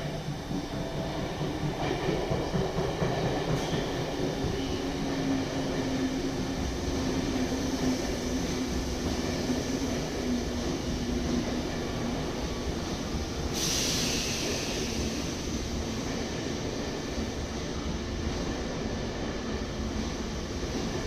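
Out-of-service electric train passing through without stopping, its wheels rolling steadily over the rails with a steady hum for much of the pass. A brief loud hiss comes about thirteen seconds in.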